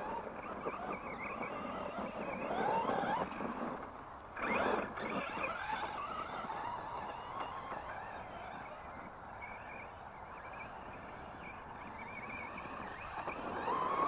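Brushless electric motor of an FS Racing 1/10 scale monster truck whining as the truck is driven, its pitch rising and falling with the throttle. It drops out briefly about four seconds in, then surges again. The truck is running on a 3S LiPo, above its 2S rating.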